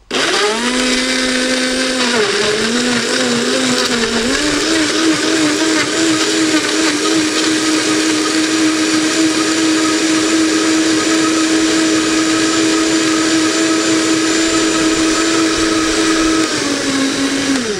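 Vitamix blender motor running, blending whole tomatoes and herbs into a smoothie. It starts suddenly, its whine sits lower and wavers for the first few seconds while the whole tomatoes are broken up, then rises and holds steady once the mix is smooth, and cuts off near the end.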